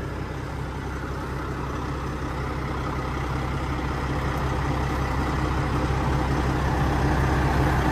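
Semi truck's diesel engine idling steadily with a deep hum, growing gradually louder.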